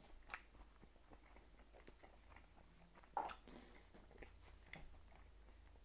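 A person chewing a bite of juicy sous vide picanha steak with the mouth close to a clip-on microphone: faint, scattered wet mouth clicks and smacks, the loudest about three seconds in.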